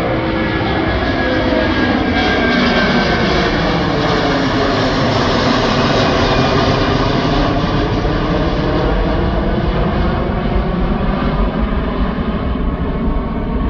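A Boeing 767's twin turbofan engines at takeoff climb power, heard from the ground. A loud, steady jet roar with tones slowly sweeping up and down as the aircraft passes.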